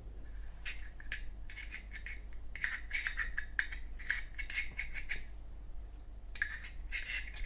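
Light metallic clicking and scraping in two spells, from handling a Zippo lighter's metal insert while rayon balls are packed in around the new wick.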